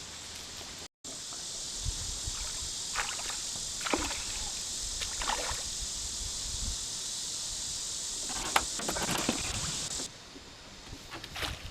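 Steady rush of river water, with scattered light knocks and small splashes. It starts abruptly about a second in and cuts off near the end.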